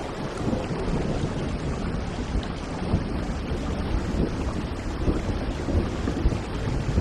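Steady rain falling, with a low rumble of distant thunder underneath.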